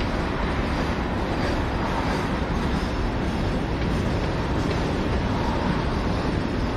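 A passing train: the steady rolling noise of railcars moving along the track.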